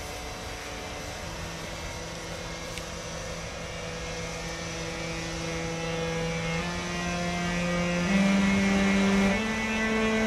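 Siemens ES64U2 Taurus electric locomotive starting off, its traction converters giving a steady tone that steps up in pitch note by note like a musical scale: the locomotive's well-known 'singing' start. The tone comes in about a second in, holds, then climbs in quicker steps over the last few seconds as the sound grows louder.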